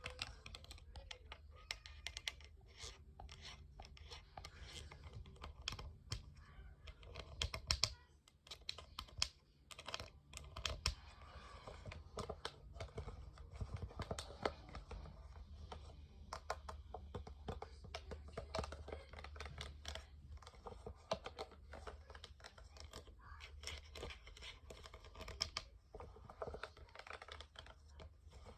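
Rapid, irregular clicking and tapping, like fingers typing on a keyboard, with a brief pause about eight seconds in.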